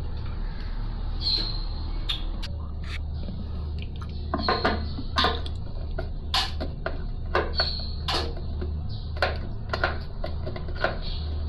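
Irregular light knocks and clicks, starting about four seconds in, over a steady low hum.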